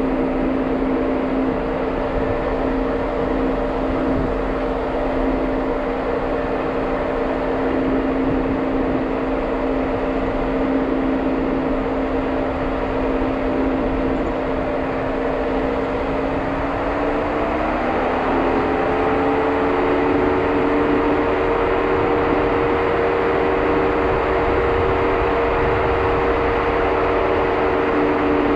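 Jeep Wrangler driving, its engine and drivetrain giving a steady hum that rises in pitch over a couple of seconds about two-thirds of the way through, then holds there a little louder.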